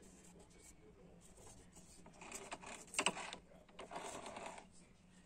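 Faint handling noise, rustling and scraping, with a brief cluster of sharp clicks about three seconds in.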